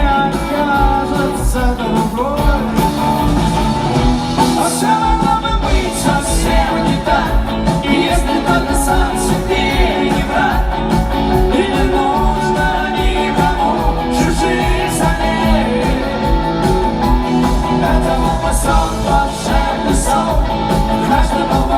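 Rock song with a singing voice over instrumental backing.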